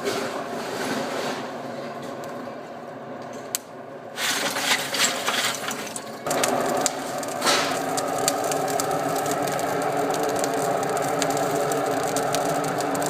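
Forge blower running with a steady mechanical hum that starts about four seconds in and gets louder about six seconds in, with a few clicks and rattles.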